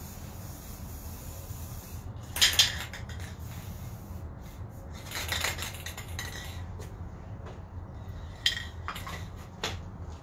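Aerosol spray-paint can hissing steadily, cutting off about two seconds in. Then scattered metallic clinks and rattles from the can being handled, loudest just after the spray stops and again near the end.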